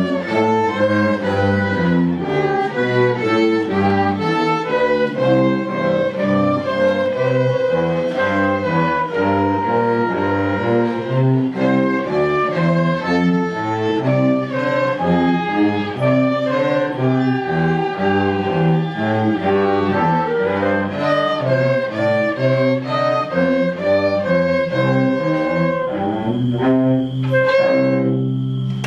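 Small string ensemble of violins and cellos playing a melody over a moving bass line, closing on a held final note near the end.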